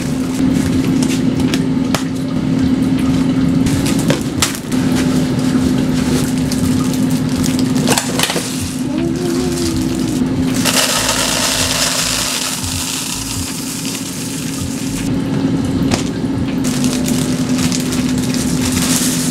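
Plastic bags crinkling and dried seeds pouring and rattling into a clear plastic canister in a dense run of small clicks, heaviest about eleven to fifteen seconds in. A steady low hum runs underneath.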